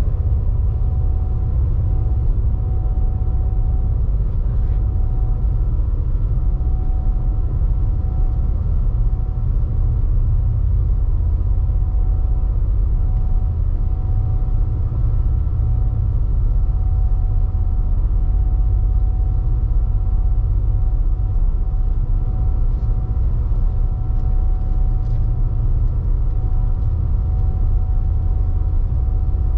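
A large engine running at a steady speed: a deep rumble with a constant hum above it.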